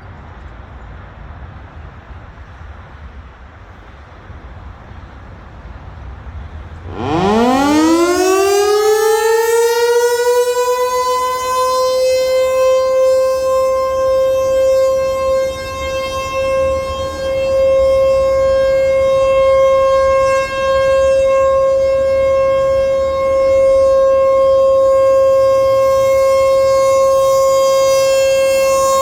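American Signal Tempest T-128 outdoor warning siren starting up for a test: after a few seconds of low background rumble it winds up in a fast rising wail, then settles into one steady high tone, the Alert signal, holding it with slight swells and dips in loudness.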